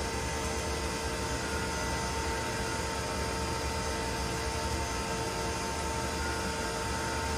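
Steady hum and hiss of the laboratory test rig, with two constant tones, one mid and one higher, over a low drone. It does not change when the ion thruster ignites.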